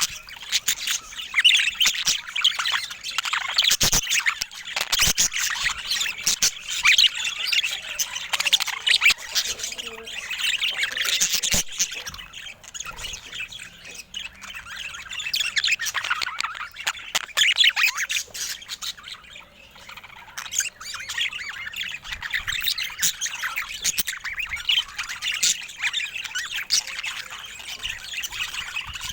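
Budgerigars chattering and squawking in a group, a dense run of overlapping chirps and squawks with a couple of brief quieter lulls.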